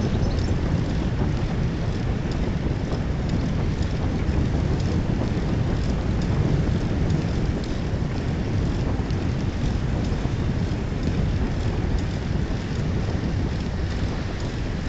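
Wind buffeting a smartphone's microphone on a moving bicycle, with tyre noise from the asphalt path: a steady low rumble and hiss.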